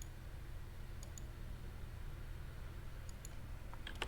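A few faint computer mouse and keyboard clicks over a steady low hum, with a quick run of clicks near the end.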